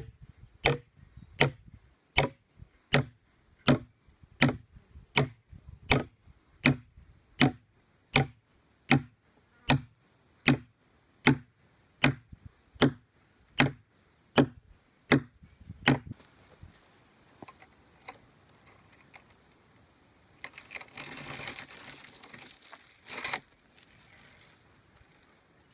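A hammer drives a steel rod anchor into a log in steady, ringing blows, about three every two seconds, roughly twenty in all, stopping about sixteen seconds in. Near the end, a metal dog chain rattles and jangles as it is hooked onto the anchor.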